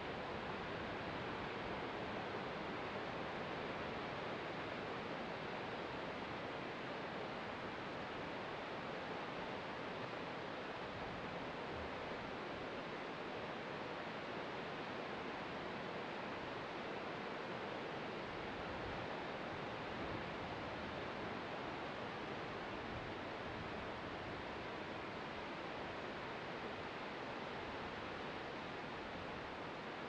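Distant ocean surf, a steady, even wash with no separate wave breaks standing out.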